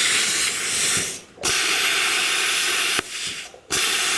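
Compressed air hissing loudly from the line of a new air compressor. It cuts off twice for a moment and starts again, as if a trigger is let go and squeezed.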